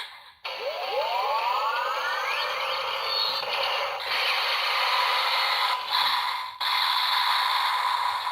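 Electronic sound effect from the DX Cyclone Riser toy belt's speaker: a rising pitched sweep, then a steady noisy whir with a held tone, cut briefly twice near the middle.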